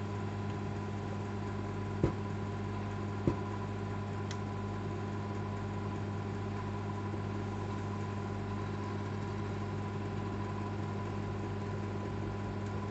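Old microwave oven running: a steady low electrical hum. Two short clicks come a little over a second apart, about two seconds in.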